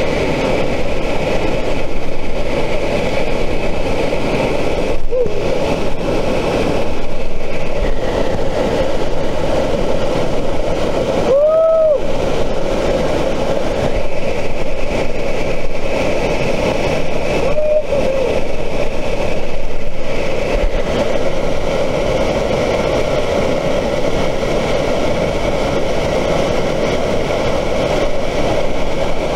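Waterfall pouring and splashing straight onto the camera: a loud, steady rush of falling water.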